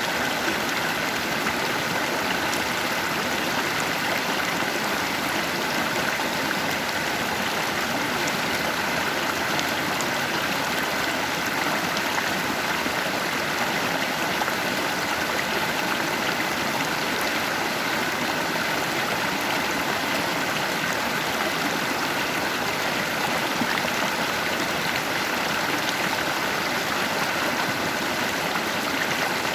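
Stream water flowing over rocks, a steady rushing and babbling of running water with no pauses.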